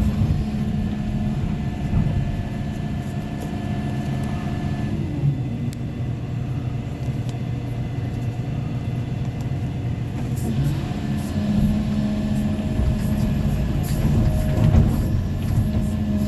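Excavator's diesel engine running as it works. Its note shifts down about five seconds in and comes back up after about ten seconds, with scattered light clicks over it.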